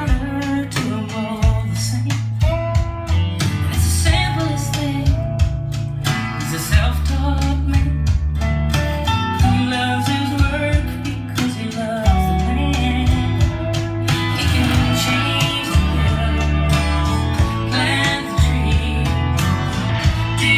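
A recorded song played through a home hi-fi system's floor-standing loudspeakers: a voice singing over guitar and a strong bass line with a steady beat.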